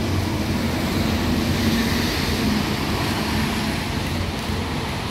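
Steady low rumble of city traffic, with a vehicle engine droning underneath a broad street hiss.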